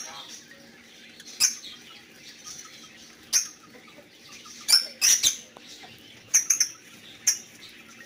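Lovebirds giving short, sharp, shrill chirps, about ten of them spread irregularly, some in quick runs of two or three.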